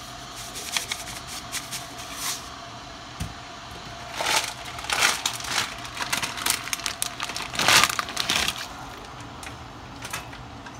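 A pack of dry rice stick noodles crackling and crinkling as the plastic is handled and the brittle sticks go into a pot of boiling water. The loudest bursts of crackling come about four seconds in and again near eight seconds.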